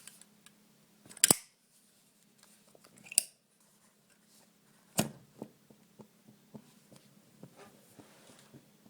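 Zippo lighter being handled: a few sharp metallic clicks and snaps, the loudest about a second in, then a run of faint ticks about three a second over a faint low hum.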